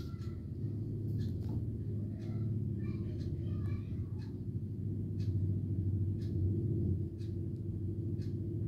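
Steady low hum with a few faint clicks and taps over it.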